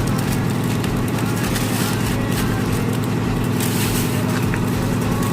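A steady low mechanical drone, like a motor running, with a few light knocks over it.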